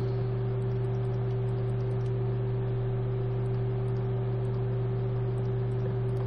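Steady low electrical hum with an even background hiss and no other sound standing out.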